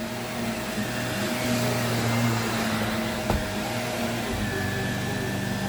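Vacuum cleaner motor running steadily with a whining hum; a short click comes a little past the middle, and the motor's note changes, dropping lower, about four seconds in.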